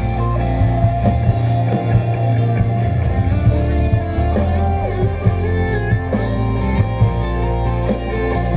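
Live country-rock band playing: electric guitars over bass and drums, with some bending, sliding guitar notes.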